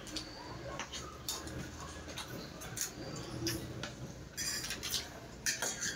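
Metal forks clinking and scraping on ceramic plates as noodles are eaten, a string of irregular light clicks with a busier patch near the end.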